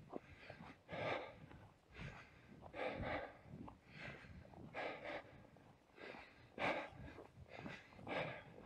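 A person breathing heavily while walking, close to the microphone: short breaths about once a second.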